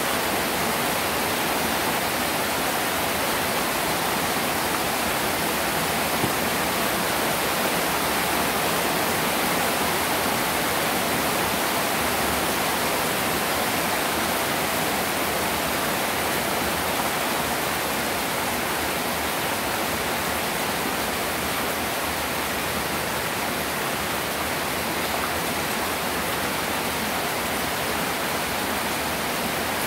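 Heavy rain pouring onto standing floodwater: a dense, steady hiss of drops striking the water surface.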